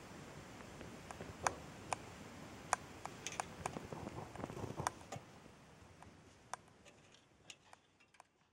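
Scattered sharp clicks at an uneven pace over a faint steady hiss, the whole fading away near the end.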